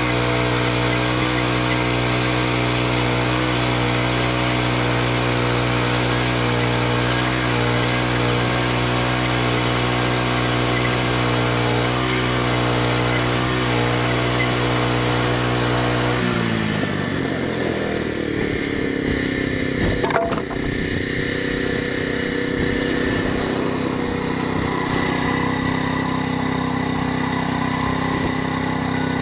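Portable bandsaw mill's petrol engine running steadily under load as the band blade cuts through a green ironbark log. About two-thirds of the way in, the engine winds down, its pitch falling, and settles into a steady idle. A single sharp knock comes a few seconds later.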